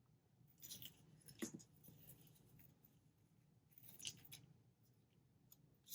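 Faint handling sounds of washi tape and paper: a few short snips and rustles, a cluster about a second in and another about four seconds in.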